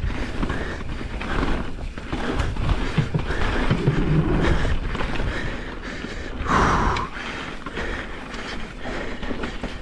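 Pivot Firebird enduro mountain bike descending a dirt trail: tyres rolling over the ground, with a run of knocks and rattles from the bike over bumps and a short louder rush about two-thirds of the way through.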